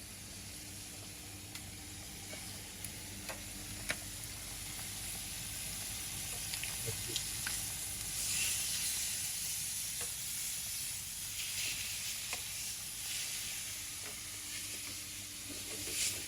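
Marinated chicken breast searing skin-side down in a hot grill pan: a steady sizzle with scattered small pops and spits, swelling a little about halfway through.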